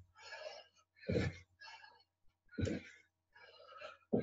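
Heavy panting breaths from a person doing squat jumps, with a low thump about every second and a half as bare feet land on a carpeted floor.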